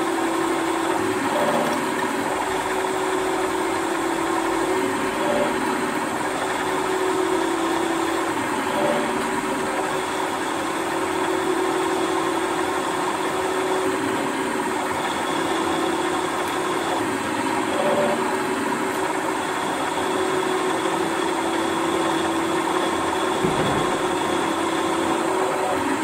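Drilling machine running with a 5 mm tapping drill cutting into metal: a steady machine hum with a few tones that swell and fade as the cut goes on.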